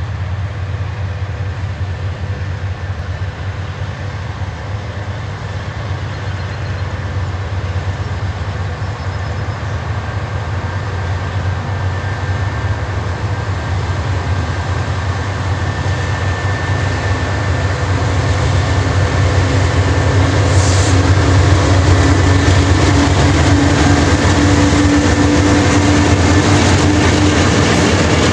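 Diesel freight locomotives approaching under power as the train gets under way, their engines' low drone growing steadily louder as they near. A brief hiss sounds about twenty seconds in.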